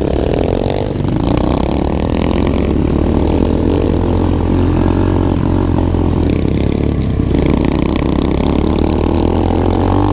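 SSR 125 pit bike's 125cc single-cylinder four-stroke engine running under way on a dirt trail, its pitch climbing and dropping as the throttle is worked through the gears.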